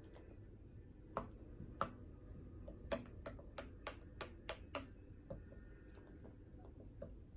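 Wooden spoon stirring soup in a lacquered bowl, knocking against the bowl's sides in light clicks: a couple of single ones, then a quick run of about seven over two seconds, then a few more.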